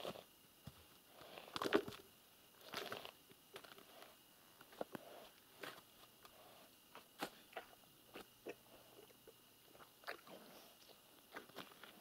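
Horse nibbling and crunching at the snow on the ice: irregular soft crunches mixed with small sharp clicks, spaced a second or so apart.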